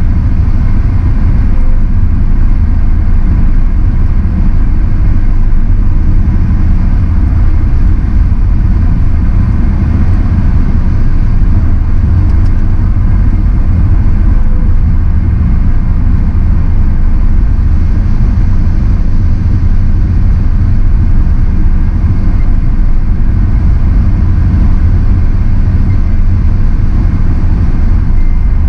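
Steady low road-and-engine rumble of a car driving at highway speed, heard from inside the car, with a faint steady whine higher up.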